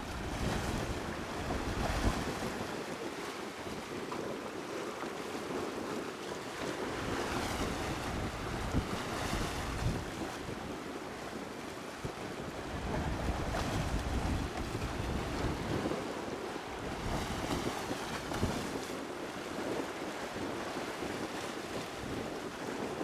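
Sea waves washing and wind blowing, with gusts buffeting the microphone in an uneven low rumble.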